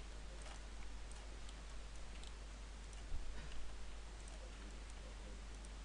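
Faint, scattered clicks of a computer mouse over a steady hiss and low hum, with one louder soft knock about three seconds in.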